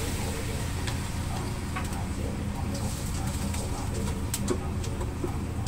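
A spatula scraping and clicking against a wok as chicken is stir-fried, a few sharp taps spread through, the loudest a quick pair near the end. A steady low hum runs underneath.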